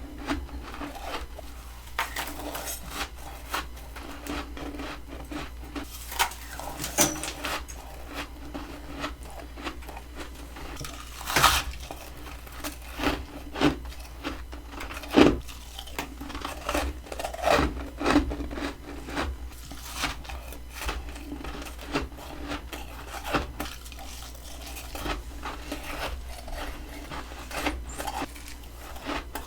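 Close-up biting and chewing of freezer frost from a humidifier-fed mini freezer: irregular crisp crackles and crunches, with louder crunches about eleven and fifteen seconds in.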